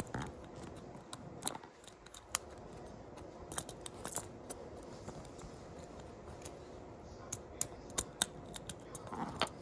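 Small plastic parts of a pull-back toy car being handled and pressed together by hand: scattered light clicks and taps, coming more often near the end.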